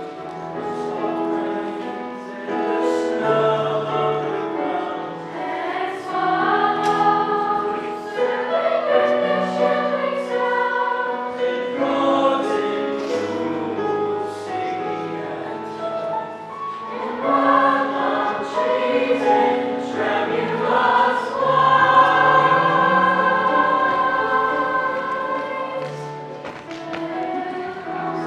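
School choir singing a slow choral piece in several parts, with piano accompaniment.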